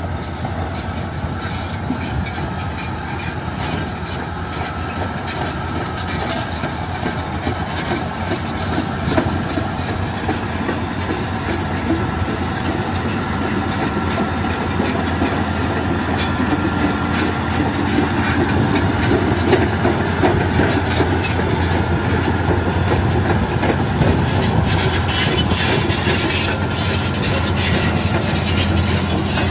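Caterpillar crawler bulldozer working: its diesel engine runs under load and its steel tracks clank and rattle as the blade pushes concrete rubble and dirt. The sound grows louder as the machine comes closer.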